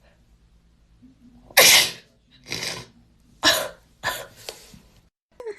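A young woman sneezing four times in quick succession, the first sneeze, about a second and a half in, the loudest.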